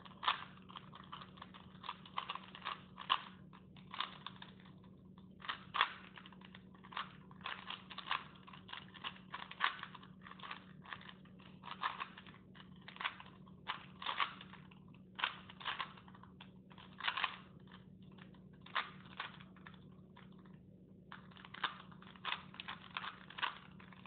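Plastic Rubik's cube layers being turned by hand: quick, irregular clicking and clacking, with a short pause about three seconds before the end.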